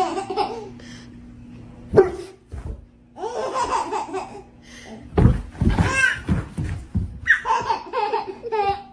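A baby laughing in repeated bouts of high-pitched giggles. A single sharp knock about two seconds in.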